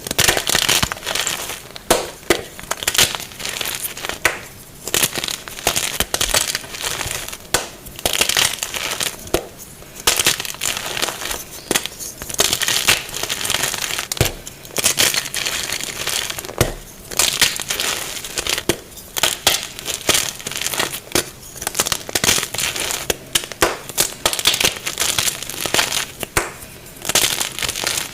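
Blocks of gym chalk mixed with Holi powder being crushed and crumbled by hand, a dense run of soft crunches and crackles.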